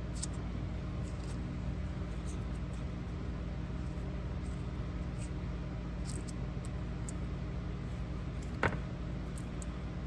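Steady low hum of room noise, with faint light clicks as small fuel pump rebuild parts (rubber diaphragms and paper gaskets) are handled and laid out on a shop towel; one sharper click near the end.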